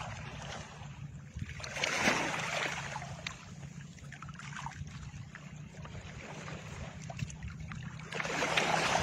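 Two soft whooshing swooshes, one about two seconds in and one near the end, each swelling and fading, over a steady low hum. These are editing transition sound effects.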